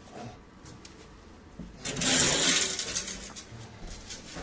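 The engine's underbody guard being taken down and handled, with a scraping, rattling noise lasting about a second, about two seconds in.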